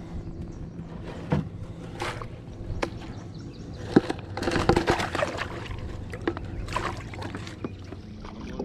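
Kayak being paddled: paddle strokes sloshing and dripping in the water, with irregular knocks against the hull and fabric rubbing over the microphone.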